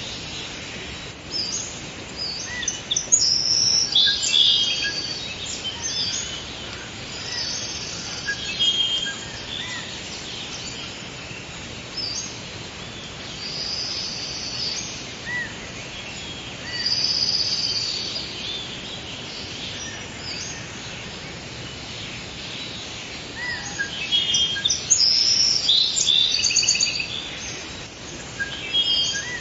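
Forest ambience of several birds chirping and singing in short high-pitched phrases over a steady background hiss, busiest in clusters near the start, the middle and the end.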